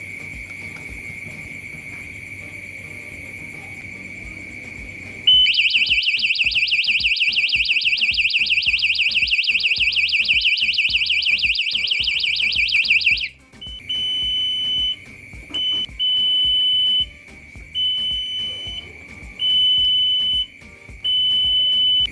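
Wireless alarm siren set off by a smoke detector. A steady high-pitched tone sounds first. About five seconds in, a loud, fast warbling siren starts, sweeping up and down several times a second, and after about eight seconds it cuts off abruptly. After that come irregular high beeps, each about a second long, over the steady tone.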